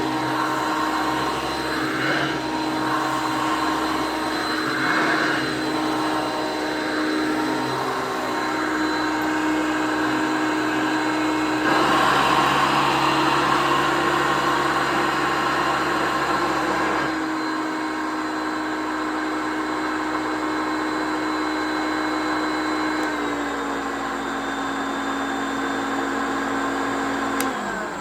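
A 1979 Hoover Concept One U4205 upright vacuum cleaner running with a steady motor whine. It gets louder about twelve seconds in and drops slightly in pitch later on. Near the end it is switched off and winds down.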